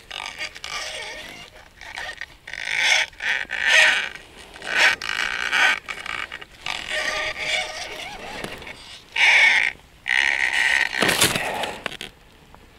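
Irregular bursts of scraping and rustling, each under a second, with a harder scrape near the end: handling noise of a winter ice-fishing rod, reel, gloves and clothing while a hooked fish is being fought.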